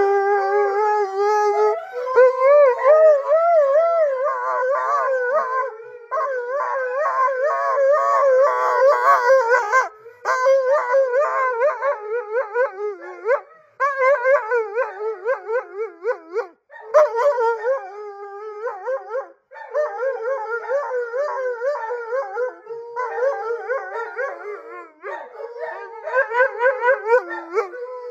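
Husky–German shepherd mix howling and "talking" in long, wavering calls, the pitch wobbling rapidly up and down, with short pauses every few seconds. It is an attention-seeking howl.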